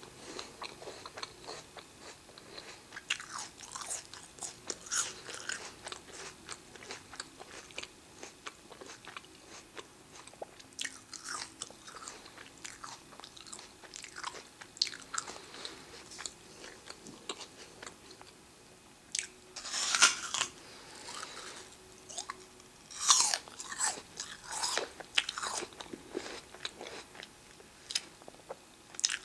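Raw red apple being chewed with a steady, crisp crunching. Louder crunchy bites come about two-thirds of the way through, in two clusters a few seconds apart.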